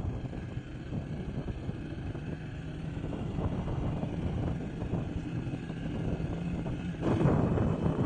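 A vehicle engine running steadily with a low hum. It grows louder and rougher about seven seconds in.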